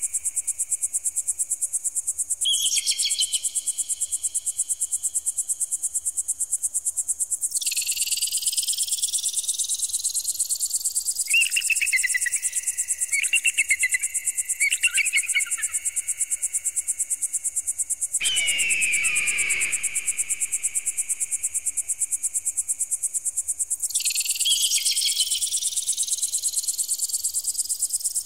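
Electronic bird-repeller sound: a constant high-pitched, rapidly pulsing tone with tones that sweep upward in pitch several times. Shorter, lower warbling sounds break in now and then, and one falling cry comes about two-thirds of the way through.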